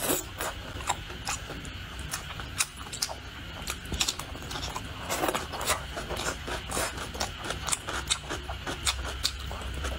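Close-up chewing of stir-fried green chili peppers and leafy greens: wet mouth clicks and smacks, irregular and several a second.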